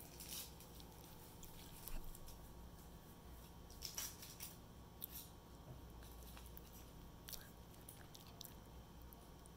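Thin foil wrapper on a chocolate egg crinkling quietly as it is peeled off by hand, in short scattered crackles, the loudest about four seconds in.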